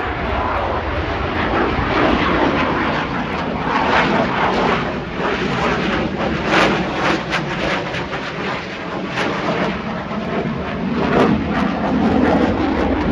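An airplane's engine droning as it flies past, with a slowly shifting pitch.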